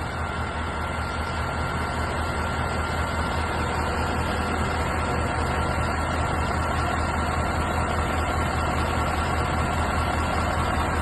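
Kanglim 2056 truck-mounted crane slewing under load on its hydraulics, with the carrier's engine running to drive the pump: a steady low hum with a faint steady high whine. There is no grinding or jerking: the rebuilt central rotary collector turns smoothly.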